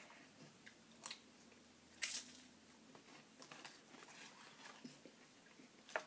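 Close-up eating sounds: a person chewing and biting chili and crackers, with a few short crisp clicks, the loudest about two seconds in.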